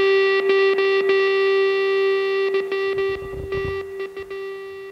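Rock music with distorted electric guitar: one held note rings on and fades away near the end.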